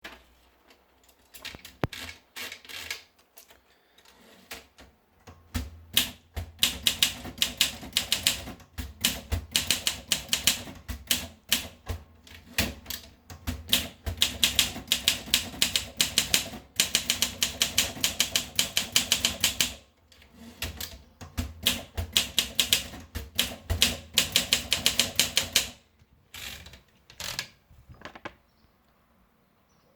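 Olympia SM7 Deluxe manual portable typewriter being typed on: a few slow keystrokes, then fast runs of sharp key strikes broken by short pauses, ending with a few single strikes.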